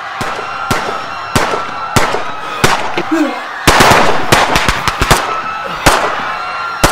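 Fireworks going off: sharp bangs about every two-thirds of a second, with a dense flurry of crackling about four seconds in.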